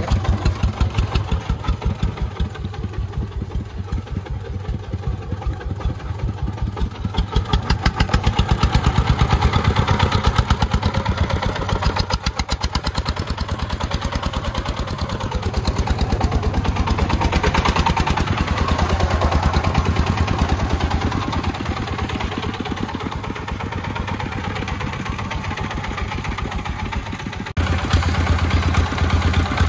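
Single-cylinder diesel engine of a three-wheeled công nông farm truck chugging under load as it hauls a bed of sand over soft, muddy ground. Its rapid, even beat swells and eases a couple of times.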